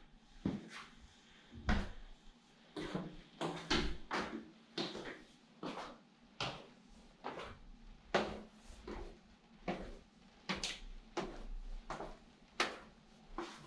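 Footsteps going down wooden stairs: a steady run of short knocks, about one and a half a second.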